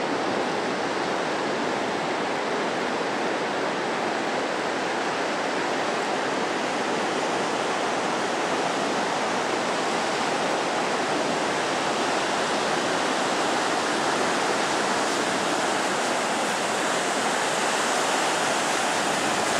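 Atlantic Ocean surf breaking on a sandy beach: a steady wash of waves.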